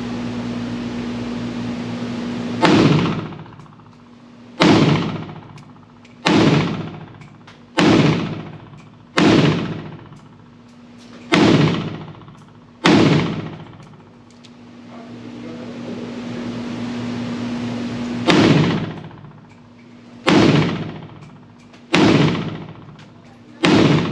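Pioneer Arms Hellpup AK pistol in 7.62x39 firing single semi-automatic shots, eleven in all, about one every one and a half to two seconds. Each shot has a short ringing tail, and there is a pause of about five seconds after the seventh shot.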